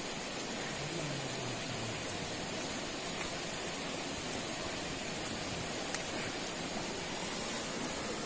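Steady rush of a hill stream running over stones, an even hiss without a break. A single faint tick comes about six seconds in.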